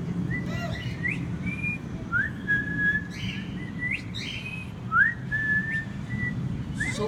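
Repeated whistling to call birds: each whistle is a quick upward sweep into a held note, coming every second or so, with shorter higher chirps between.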